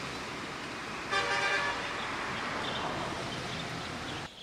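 A vehicle horn sounds once for about half a second, about a second in, over a steady outdoor background of traffic noise. The sound cuts off abruptly near the end.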